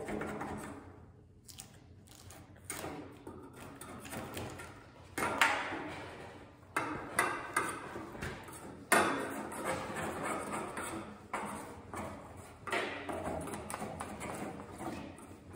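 Stainless steel wax melter tank being worked on by hand: several sharp knocks, the loudest about nine seconds in, each leaving the steel shell ringing briefly, with scraping and rustling as the insulation blanket is pulled away from its side.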